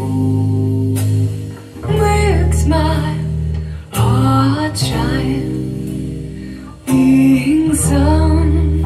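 A song with singing and guitar played through GT Audio Works GTA3r line-array speakers and Sound Insight SI600 open-baffle subwoofers. Strong, sustained bass notes change every second or two under the voice and plucked strings.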